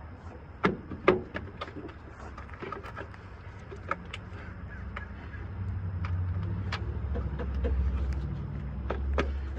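Scattered sharp metallic clicks and knocks from hand work on the truck, joined about halfway by a low rumble that grows and is loudest near the end.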